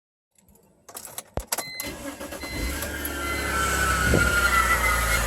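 A few sharp clicks, then the 2004 BMW 325i's inline-six engine catches on a cold start about two and a half seconds in and runs. From about three seconds in a high, slightly falling squeal rises over the engine and grows louder.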